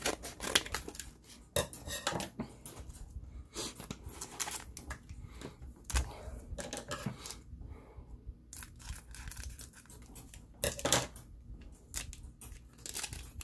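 Scissors snipping open a Bakugan trading-card booster pack, then the crinkly foil wrapper crackling and rustling in irregular bursts as it is pulled apart and the cards slid out.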